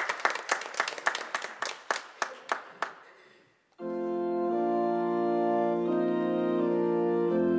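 Hand clapping for about three seconds, then a brief pause and an organ comes in holding sustained chords that shift a few times.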